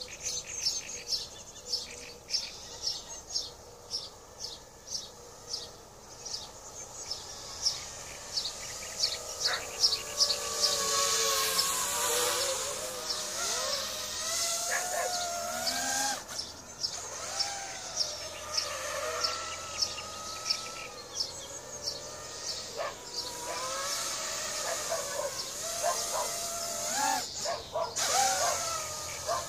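A bird chirps steadily, about twice a second. From about ten seconds in, a 250-size FPV racing quadcopter on Racerstar 2205 2600KV motors with three-blade 5-inch props flies about, its propeller whine wavering up and down in pitch with the throttle.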